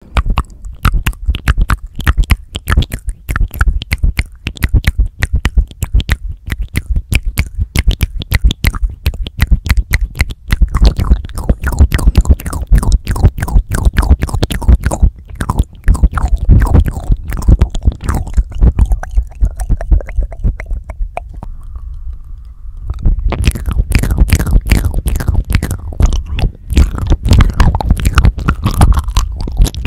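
Close-miked wet mouth sounds and licking right on a handheld recorder's microphones: rapid clicks, smacks and slurps with a deep thud of breath and contact underneath. They ease off briefly about two-thirds of the way through, then start up again.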